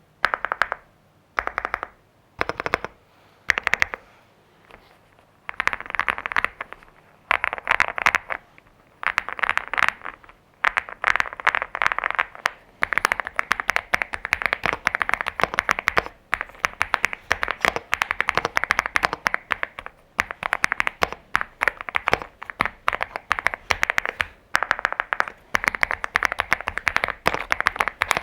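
Typing on a LEOBOG Hi86 mechanical keyboard with linear Active Axis v3 switches, a polycarbonate plate and Cherry-profile PBT doubleshot keycaps: short bursts of keystrokes for the first few seconds, then steady fast typing.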